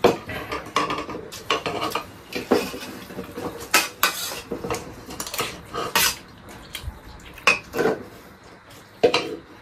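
Metal spoons clinking and scraping against an aluminium cooking pot and steel plates as rice is served out of the pot and eaten, in a run of irregular clinks.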